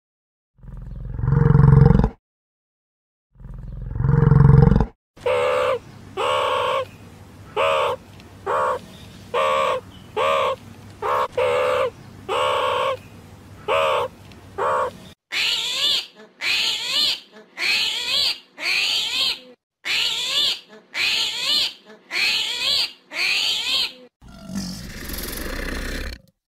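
A run of different animal calls cut together. First come two deep roars. Then comes a long series of short, evenly repeated pitched calls, more than one a second, followed by a series of higher, brighter calls, each falling in pitch. It ends in a brief noisy rasp.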